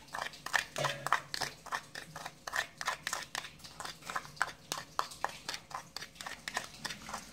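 Metal spoon tapping and scraping against a small dish while spooning powder into a steel mixing bowl: a run of quick, irregular clicks and taps.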